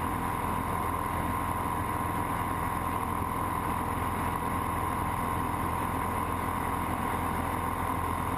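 Single-engine light aircraft's piston engine and propeller running steadily in flight, heard from inside the cockpit as an even drone.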